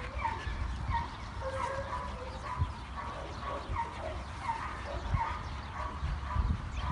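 A dog yapping over and over in short, quick yips, about two or three a second, with low wind rumble on the microphone.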